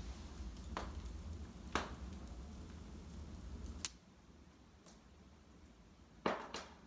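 Wood fire burning in a fireplace: sharp crackles and pops every second or so, the loudest about two seconds in and near the end, over a low rumble that stops about four seconds in.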